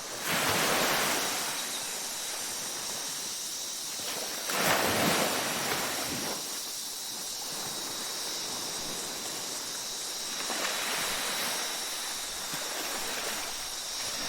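Ocean waves washing onto a beach, a steady rush of surf with louder breaks about half a second in and about five seconds in. A faint, steady, thin high tone runs underneath.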